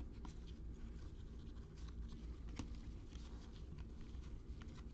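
Faint rustling and clicking of football trading cards being handled, flipped and slid against one another, in scattered short strokes over a low steady hum.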